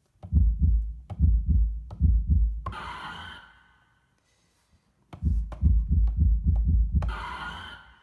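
Heartbeat sound effect from the Akai MPK Mini Play's SFX drum kit, played from its pads: a run of deep, regular thumps followed by a short rushing hiss that fades. The same comes again about five seconds in, with the thumps faster.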